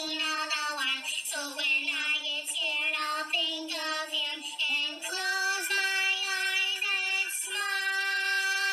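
High-pitched cartoon character voices singing a song over music; about five seconds in, the singing settles into long held notes.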